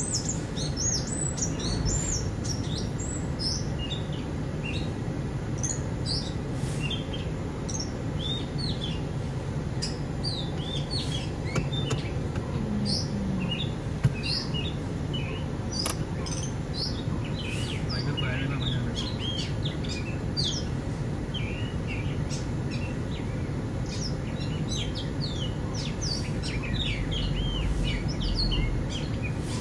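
Several birds chirping and calling in quick, scattered notes, over a steady low hum.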